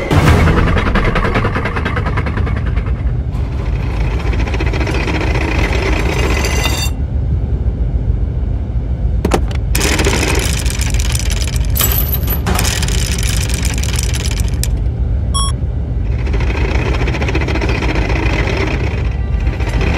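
Tank engine sound effects from an animated cartoon: a steady, heavy low rumble of a running engine, its upper layers shifting every few seconds, with a single sharp click a little after halfway.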